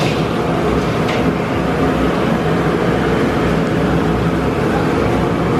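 Steady noise of a gas burner under a kadai of hot oil with palli pakodi deep-frying in it, with a short knock about a second in.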